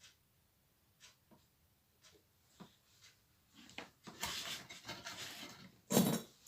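Small tools and parts handled at an electronics repair bench: a few light clicks and taps, then about a second and a half of scraping and rubbing, and one louder knock or clatter near the end.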